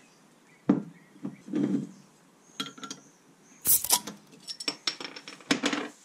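A glass beer bottle set down on a wooden workbench and opened with a metal bottle opener: glassy knocks and clinks, a short hiss a little past halfway as the cap comes off, then a few quick metallic clinks.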